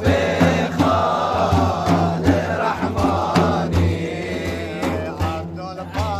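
A male voice sings a Kurdish madih, a religious praise song, in a chanting style over a regular beat of percussive strikes.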